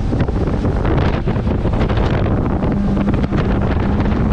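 Wind buffeting the microphone aboard a rigid inflatable motorboat running fast over open water, with the rush of its wake and spray. A steady low hum comes in about three seconds in.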